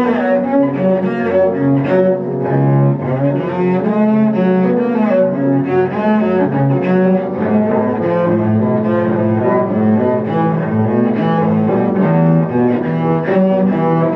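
Cello and piano playing a cello sonata, the bowed cello carrying a continuous melody with vibrato.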